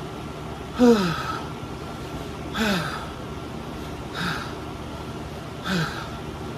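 A person gasping out short, breathy exhales with a falling pitch, four times, about every second and a half, the first the loudest: pained breathing against the burn of a super-hot chili chip.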